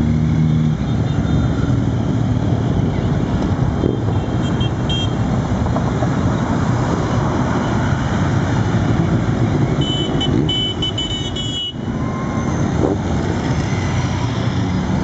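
A stream of motorcycles riding past one after another with their engines running, mixed with the passing of a van, as a steady wash of engine and road noise. Brief high-pitched beeps sound about four seconds in and again around ten seconds.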